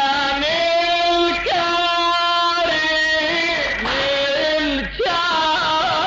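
Husseini lament (latmiya) chanted by a male radood, drawing out long held notes that glide from one pitch to the next, with a wavering ornament near the end.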